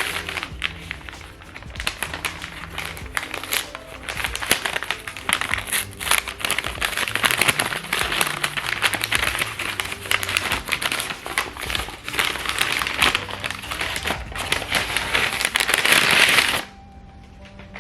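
Wrapping paper crinkling and tearing as a wrapped bag of coffee beans is unwrapped, over quiet background music. The crinkling is continuous and stops abruptly near the end.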